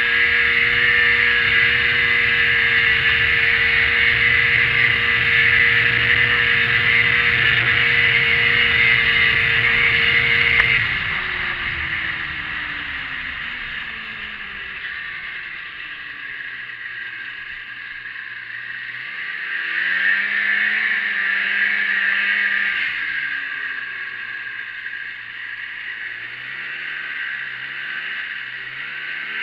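1987 Arctic Cat Cougar snowmobile's two-stroke engine held steady at full throttle. About eleven seconds in the throttle is let off and the engine note drops and winds down to a low, uneven slow-speed running. There is a short burst of throttle around twenty seconds and a few small throttle blips near the end.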